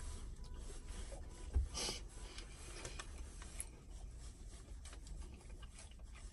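Close-up eating sounds of someone chewing fried chicken: faint mouth noises and small clicks, a soft thump about one and a half seconds in, then a brief crunch just after, over a low steady rumble inside a car.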